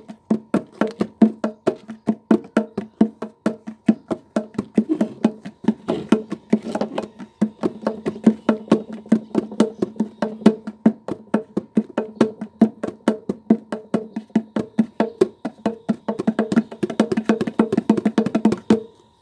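A pair of old homemade kendang hand drums, one head of banner material and one of taped plastic, played with both hands in a fast, steady pattern of slaps and pitched drum tones, several strokes a second. The playing stops shortly before the end.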